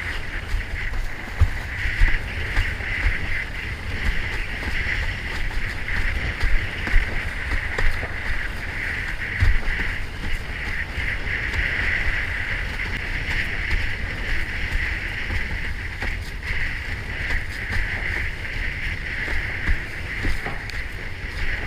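Windsurf board sailing across choppy water: a steady rush of water and spray, with wind rumbling on the camera's microphone and irregular low thumps as the board hits the chop.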